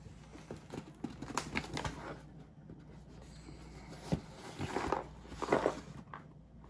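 A cardboard box handled and turned over on a table: rubbing and scraping of the cardboard with a few light knocks, loudest from about four to five and a half seconds in.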